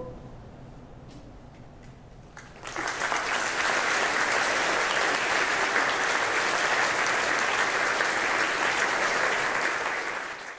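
The last of the choir's held chord dies away, leaving a hush for about two and a half seconds. Then the audience starts clapping, steady applause that fills the hall.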